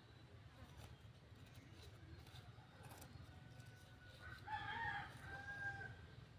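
A rooster crowing once: a single long call of about two and a half seconds starting about three seconds in, loudest in its middle.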